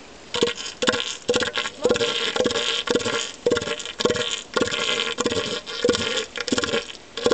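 Northern elephant seal calling: a long run of short, harsh, throaty pulses, about two a second.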